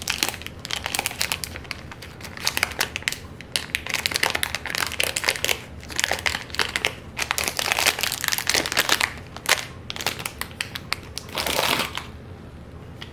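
Plastic packaging crinkling and crackling in irregular handling as it is pulled open and off a new speed cube; it stops about a second before the end.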